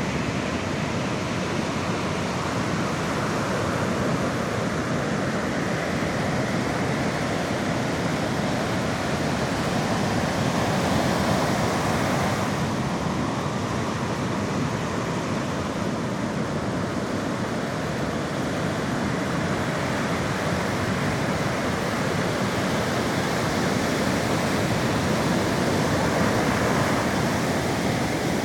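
Sea surf breaking and washing on the shore: a steady wash of noise that swells a little louder now and then.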